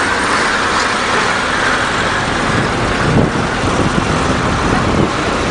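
Heavy military trucks running, a steady mix of engine and road noise as the column moves, with a brief jolt a little over three seconds in.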